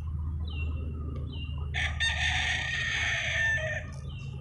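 A rooster crowing once, about two seconds long, with a few short, high bird chirps before it.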